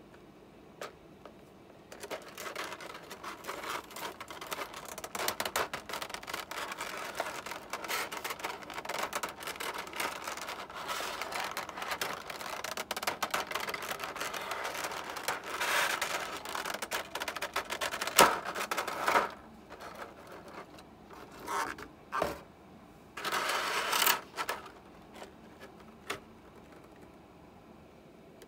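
Clear plastic blister tray crinkling and crackling as it is handled and turned over, a dense run of small crackles with one sharp snap partway through, then a few short bursts of crinkling.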